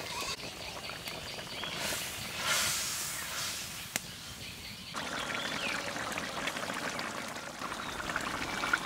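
Fish curry boiling hard in a large iron wok, a steady bubbling, sizzling noise. The sound changes abruptly about five seconds in.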